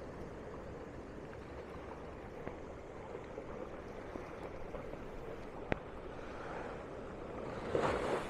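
Small ocean waves washing onto a beach, a steady wash with a louder surge near the end. A single sharp click sounds about two-thirds of the way through.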